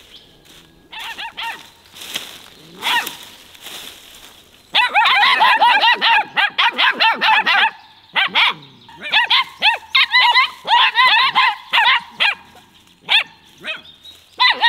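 Puppies yapping in quick, high-pitched yelps. A few scattered yips come first, then a dense, almost continuous run of yapping starts about a third of the way in, broken by a couple of short pauses.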